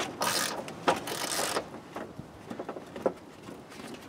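Clear plastic door vapor barrier sheet pulled and handled, rustling in two crinkly bursts within the first second and a half, followed by a few light clicks and taps from inside the door.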